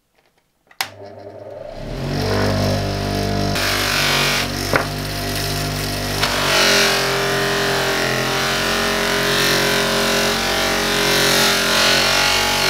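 Bench polisher switched on with a click about a second in, its motor spinning up to a steady hum. From about three and a half seconds in, a loud rushing hiss joins the hum as the spinning sisal buffing wheel is worked against compound and the sledgehammer head.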